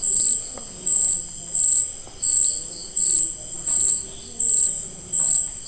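Insect chirping: a high-pitched chirp repeating steadily about every 0.7 s. A few faint clicks sound under it.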